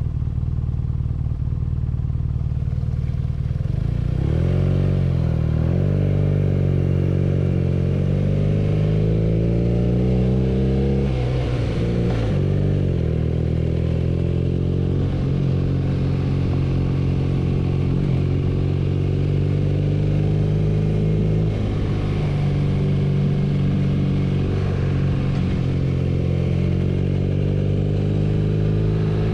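BMW R nineT's air/oil-cooled boxer twin engine under way: steady at first, its revs climb from about four seconds in, drop sharply just before halfway, then rise again and settle into a steady cruise.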